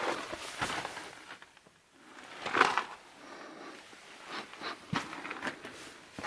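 Irregular footsteps and scuffs on rocky ground, with a louder scuff about two and a half seconds in.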